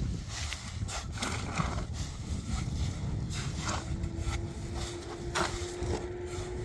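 Shovels scraping and chopping through a wet concrete mix of cement, sand and gravel, in irregular strokes. A steady faint hum joins about two and a half seconds in.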